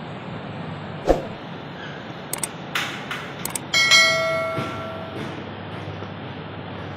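Conveyor belt running over its idler rollers: a steady rumble. A sharp knock comes about a second in, a few clicks follow, and a bright ringing chime starts a little before four seconds in and fades over about a second.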